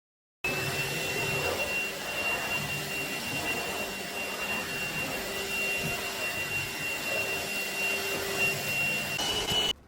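Akitas V8 cordless stick vacuum running steadily, a high motor whine over the rush of air. It starts suddenly about half a second in, the whine steps up slightly near the end, and then it cuts off.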